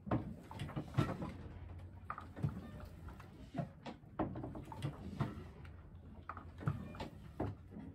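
Irregular knocks, clicks and creaks inside a Hardin 45 sailboat's cabin as the boat rolls at its mooring, with fittings and loose gear shifting at each roll.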